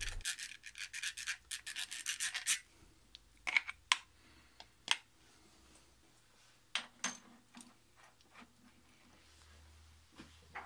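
Rubbing oil onto the threads of a socket-head bolt: a quick series of scratchy strokes for about two and a half seconds, then a few scattered light clicks and knocks of metal parts being handled.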